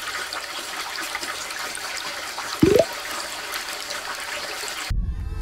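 Steady rush of running water in aquarium exhibits, with a single short rising squeak about two and a half seconds in. Background music starts abruptly near the end.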